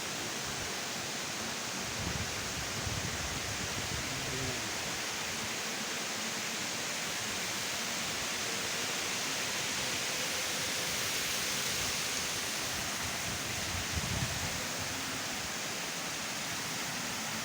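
Running water rushing steadily, with a couple of brief low bumps about 2 and 14 seconds in.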